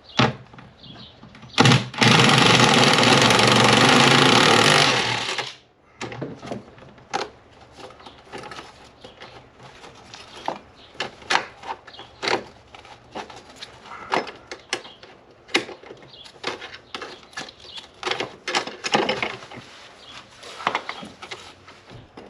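Power impact wrench hammering for about four seconds on a bolt that has not been sprayed with penetrating oil. It is followed by scattered clinks and knocks of tools and metal parts being handled.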